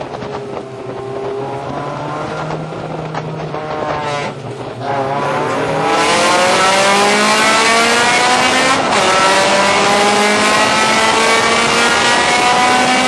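Honda Civic race car's engine heard from inside the cabin: running at light throttle while rolling in the pack, then opened up about five seconds in, getting much louder and climbing steadily in pitch as the car accelerates on the restart.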